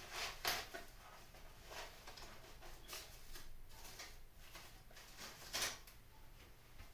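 Brief rustles and scrapes of dried pampas grass being handled and pushed into the arrangement, the loudest shortly after the start and another near the end.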